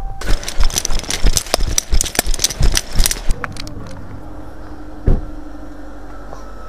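Handling and rubbing noise on a body-worn camera's microphone as the wearer climbs out of a vehicle: a dense run of clicks and rustles for about three seconds. A single knock follows about five seconds in, over a steady low hum.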